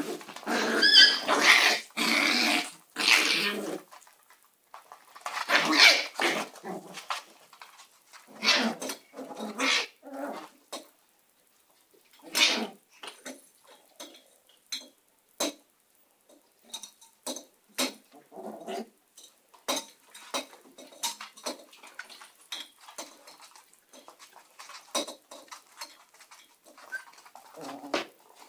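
Shiba Inu puppies play-fighting, yelping and barking in short bursts. The bursts are loudest and most continuous in the first four seconds, then come in scattered short bursts.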